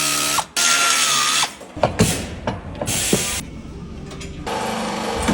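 Power tool run in three short bursts of about a second each, with metal knocks between them. A steadier tool noise starts near the end.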